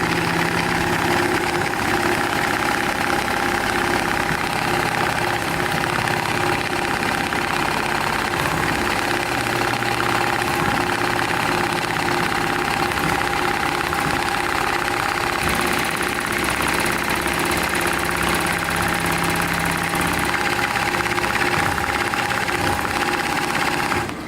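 Industrial programmable pattern sewing machine (profile stitcher) running continuously at steady speed, a droning machine hum with a steady whine. It stops suddenly near the end.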